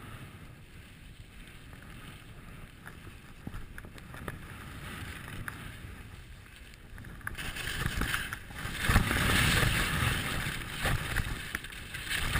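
Skis sliding over packed snow with wind rushing over the microphone. It is fairly quiet at first, then from about seven seconds in it becomes a much louder, rough hiss and scrape as speed builds.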